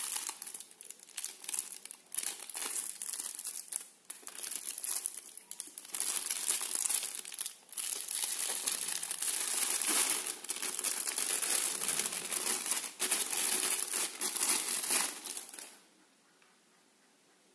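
Thin clear plastic wrapping crinkling and rustling in uneven bursts as it is pulled off a pair of metal aviator sunglasses, then stopping abruptly near the end.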